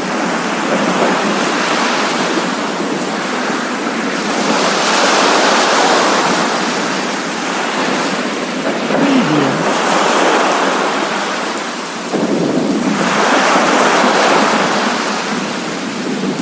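Coastal sea waves washing in over steady rain, the surf swelling and easing in slow surges every few seconds.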